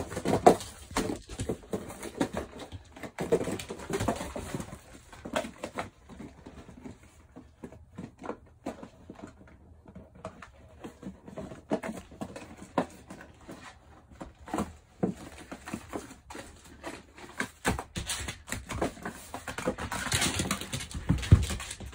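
Puppy playing on a laminate floor: an irregular patter of scrabbling claws with scuffs and knocks, busiest at the start and again near the end.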